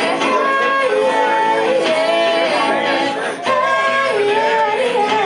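A singer performing live to strummed guitar, the voice holding and sliding between long sung notes.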